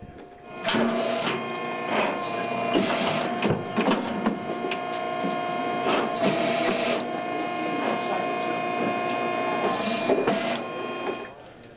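Hydraulic power unit of a Moly Silencer cattle chute running with a steady whine while the valve levers are worked. There are several short hissing surges and a few knocks. It starts about a second in and stops near the end.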